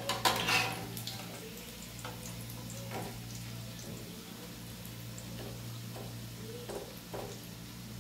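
Minced-meat burger patties sizzling in shallow oil in a steel frying pan, with a metal spatula clattering against the pan as they are turned. The loudest clatter is at the start, and a few softer scrapes and knocks follow about three seconds in and near the end, over a steady low hum.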